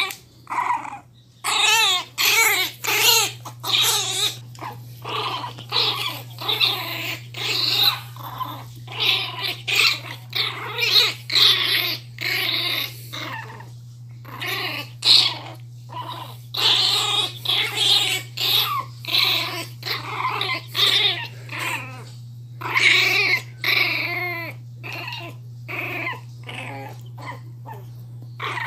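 Angry miniature pinscher puppy growling and yapping in quick, repeated outbursts with short pauses between them, over a steady low hum.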